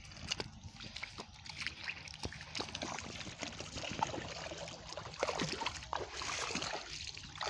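Shallow water splashing and sloshing as someone wades through a flooded paddy and works a hand in the water, with water trickling and dripping off a lifted fish; many small irregular clicks and splashes.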